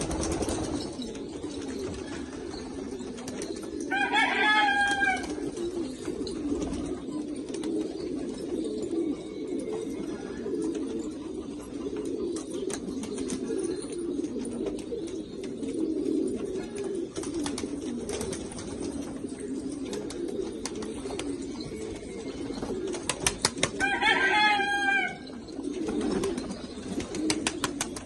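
A flock of pigeons cooing steadily and continuously. Twice, about four seconds in and again near the end, a louder, higher-pitched call lasting about a second rises above the cooing.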